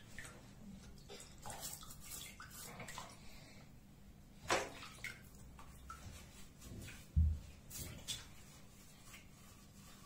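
Water splashing and sloshing in a bathtub as a wet cat is washed and scrubbed in shallow water, in short scattered bursts. A sharper noise comes about four and a half seconds in and a low thump about seven seconds in.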